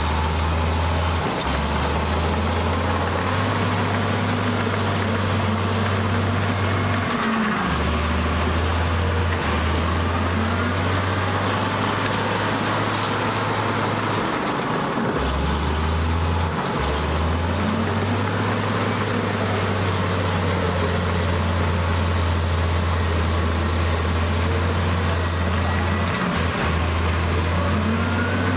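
Heavy diesel machinery engine noise running continuously, its low drone shifting between a few pitches in steps, with revs rising and falling.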